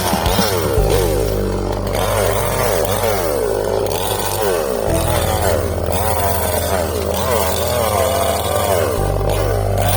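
Ibell chainsaw running under load while cutting wood, its engine pitch repeatedly rising and falling.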